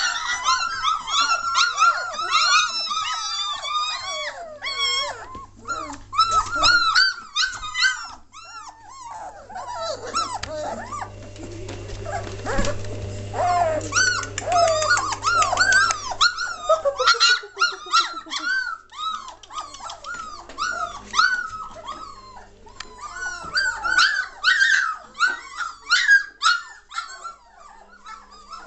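Three-week-old German Shorthaired Pointer puppies crying and whimpering, many short high cries overlapping one another, thinning out in the middle and picking up again near the end.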